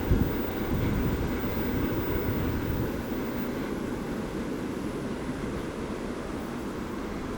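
Freight train wagons rolling past on the rails: a steady low rumble with a single knock right at the start, slowly fading.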